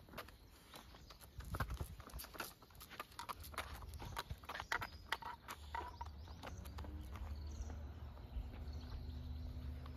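A dog's rubber boots tapping and scuffing on asphalt as it walks, a quick irregular patter of clicks that thins out after about six seconds. A low steady rumble builds underneath in the second half.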